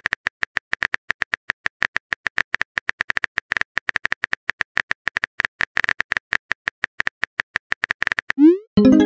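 Phone keyboard typing sound effect: rapid, irregular clicks, about five or six a second. Near the end comes a short rising whoosh, then a louder burst.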